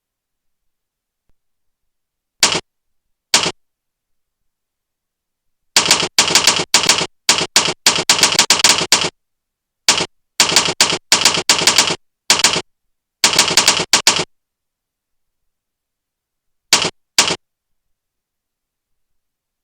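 Typewriter-style keystroke sound effects played by keyboard-sound software, one clack per key pressed. A couple of single presses come first, then fast runs of typing with short pauses, then two last presses near the end.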